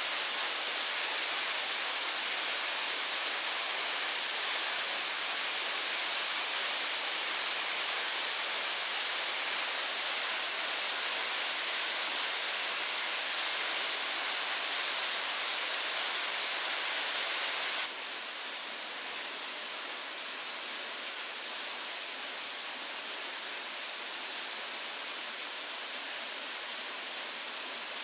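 Steady, even hiss of noise, strongest in the high range, that drops suddenly to a lower steady level about eighteen seconds in.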